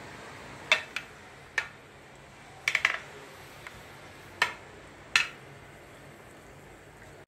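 Metal cake server clinking against the rim of a baking dish while spreading pudding: about eight short, sharp clinks at irregular intervals, three in quick succession near the middle.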